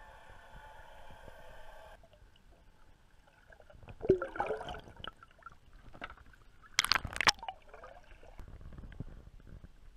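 Water gurgling and splashing around a snorkelling freediver as he moves in the water. There is a bubbling gurgle about four seconds in and sharper splashes around seven seconds.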